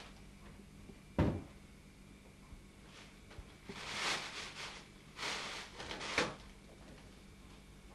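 A kitchen cupboard door shuts with a sharp knock about a second in. Later a plastic bag rustles and crinkles in three short bursts.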